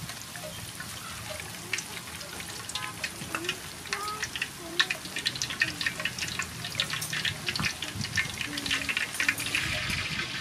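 A rice-flour-battered shrimp fritter deep-frying in hot soybean oil in a wok, the oil sizzling and crackling steadily. The popping grows denser and louder about halfway through.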